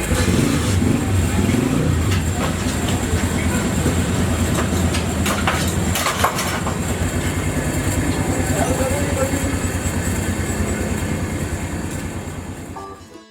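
An engine or motor-driven machine running steadily with a fast, even pulsing, fading out near the end.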